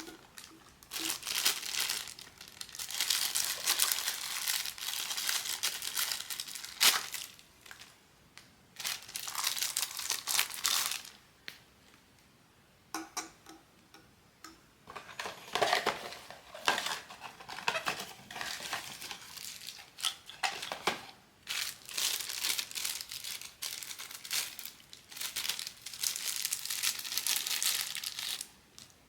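Crinkly blind-box packaging being handled and opened by hand, in irregular bursts of crackling with short pauses between.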